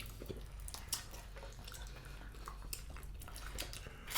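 Soft, wet eating sounds: scattered small clicks and smacks of chewing, one a little louder about a second in, over a low steady room hum.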